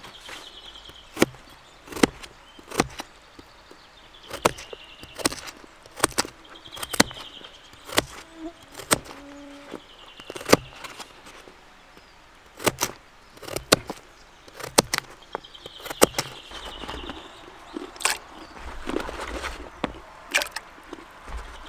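Knife cutting a carrot on a board: sharp, irregular knocks about one a second. Faint high buzzy chirping comes every couple of seconds.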